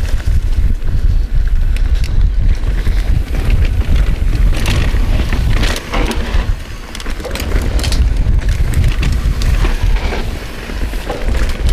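Wind buffeting the microphone of a mountain bike rider's action camera during a fast downhill trail descent, with the knobby tyres rumbling over dirt and the bike rattling over bumps. It eases briefly twice.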